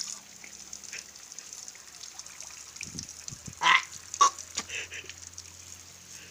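A stream of water spraying down onto a person and splashing into a tub of water, a steady hiss. A little past the middle come two short loud splutters, about half a second apart, as she sputters with her mouth open under the spray.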